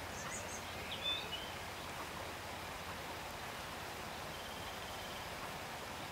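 Steady outdoor background hiss, with a few short high bird chirps about a second in and a faint rapid trill later on.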